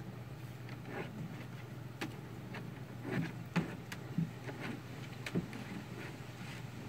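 Steady low hum with scattered faint clicks and a few soft knocks.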